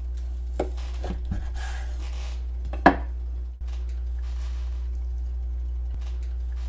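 Chef's knife cutting orange and apple slices on a wooden cutting board: a few knocks of the blade on the board, the loudest about three seconds in, over a steady low hum.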